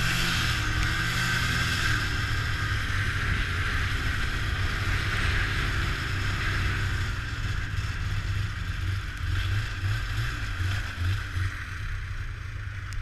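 Snowmobile engine running steadily under way, its low drone easing off a little toward the end.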